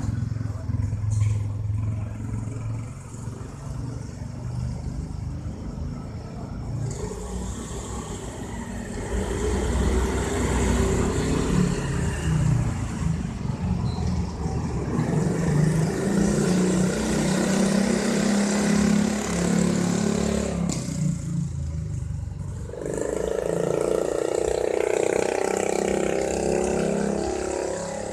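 Wind blowing hard in gusts, a continuous rushing with low droning tones that shift in pitch, easing briefly about three-quarters of the way through before picking up again.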